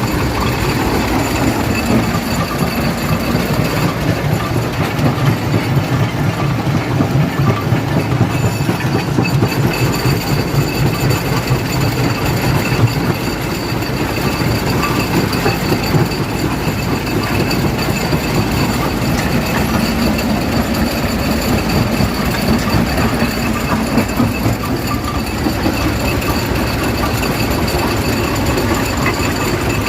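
Stone crusher machine running and crushing rock: a loud, continuous rumbling rattle with a faint steady high whine from the machinery.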